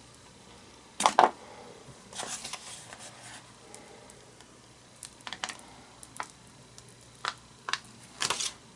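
Scattered handling sounds at a work table: a pair of sharp taps about a second in, a short papery rustle a second later, then a few isolated light clicks and taps.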